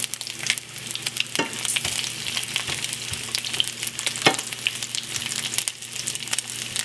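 Peppered bacon pieces frying in a deep sauté pan, a steady sizzle full of small crackling pops, with a couple of louder pops.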